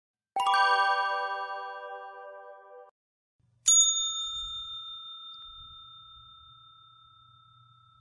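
A ringing metallic strike with many overtones, hit twice in quick succession and cut off abruptly after about two and a half seconds. After a short gap, a desk service bell gives a single sharp ding that rings on and slowly fades.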